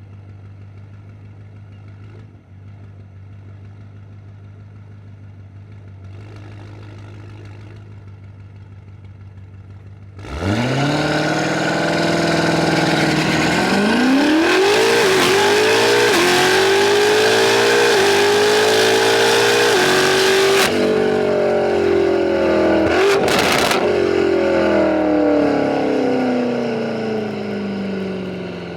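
Tuned BMW F90 M5's twin-turbo S63 V8 idling steadily for about ten seconds, then launching hard at full throttle. It climbs in pitch through a series of quick upshifts, each a small dip in pitch. It holds high revs, then falls in pitch as the throttle comes off near the end, as on a drag-strip pass.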